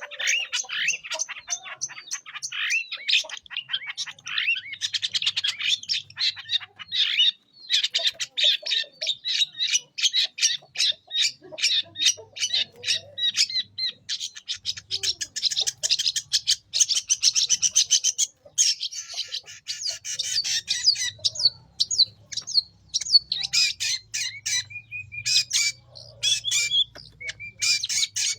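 Long-tailed shrike singing without pause: a fast, harsh chattering song of rapid scratchy notes, with some clearer repeated phrases near the end.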